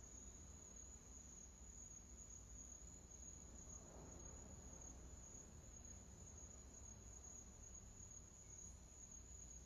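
Near silence: faint background hiss with a thin, steady high-pitched tone.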